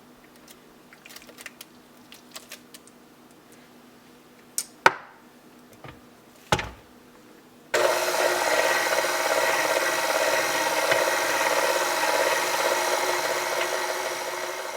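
A few light clicks and two knocks of utensils on a bowl, then an electric kitchen mixer switches on about eight seconds in and runs steadily, beating the banana batter, and eases off slightly near the end.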